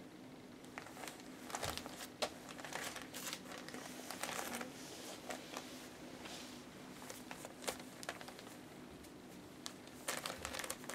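Newspaper bedding crinkling and rustling in short, irregular bursts as puppies crawl and shuffle over it, busiest in the first few seconds and again near the end, over a faint steady hum.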